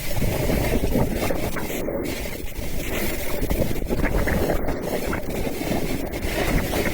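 Wind buffeting the microphone of a skier moving downhill, a steady rough rush, with skis scraping and hissing over snow.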